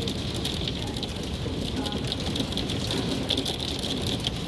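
Hail and heavy rain pelting the yard, plants and house: a steady, dense clatter of many small impacts, with a low rumble underneath.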